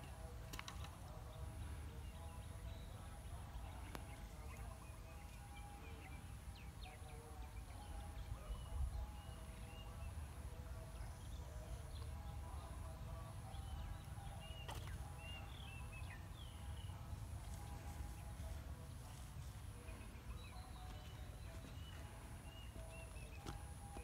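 Rural outdoor ambience: small birds chirping on and off, a steady high-pitched pulsing buzz, and a low rumble underneath.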